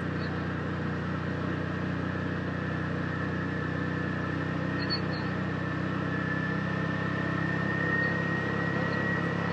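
Side-by-side UTV engine running steadily, with a thin whine that climbs slightly in pitch near the end.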